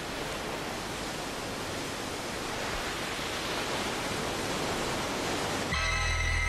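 Steady rushing of sea surf, slowly growing louder. Near the end, music with long held chords comes in.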